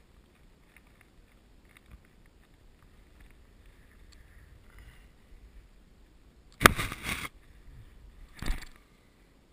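Kayak hull knocking against a fallen log as the boat is hauled over a log jam: faint knocks and rustles, then a sharp thump about seven seconds in followed by half a second of scraping, and a smaller knock near the end.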